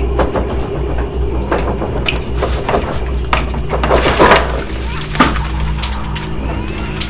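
Irregular wooden knocks and cracks, loudest about four seconds in, over a steady low drone.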